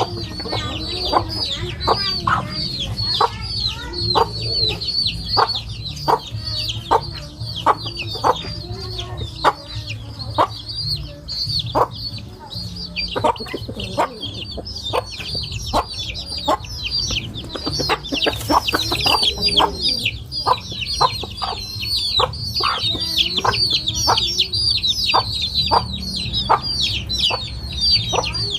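Chickens at feeding time: a constant chorus of short, high-pitched falling peeps, with some lower clucking and many short sharp taps.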